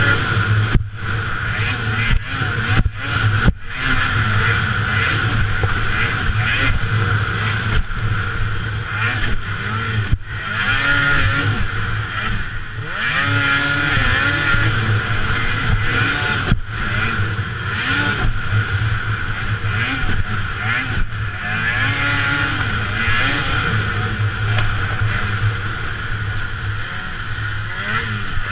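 Racing snowmobile engine heard from on board, revving up and down again and again as the throttle is worked, with a few sharp momentary drops in sound in the first few seconds.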